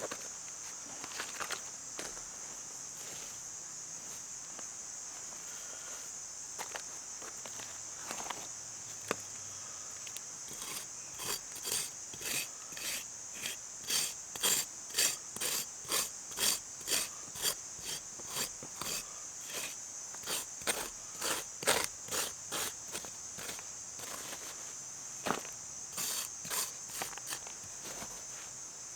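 A steady high-pitched insect drone in the background. From about ten seconds in, a run of regular footsteps, about two a second, crunches along for some twelve seconds and then stops.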